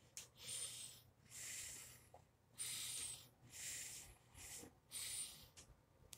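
Faint breathing close to the microphone: about five soft, hissy breaths, roughly one a second, over a faint low room hum.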